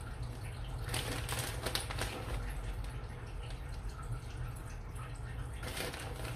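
Light crackling rustles, about a second in and again near the end, from hands handling grated cheese and its plastic packet while the cheese is scattered over a dish, over a steady low hum.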